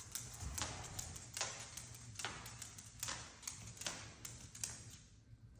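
Scarlet macaw's claws clicking and tapping on a hard floor as it walks, a faint irregular step about once a second.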